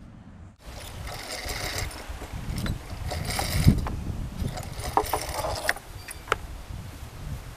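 Rustling and clattering with scattered sharp clicks and knocks, the loudest knock near the middle and a cluster of clicks in the second half. It starts abruptly about half a second in.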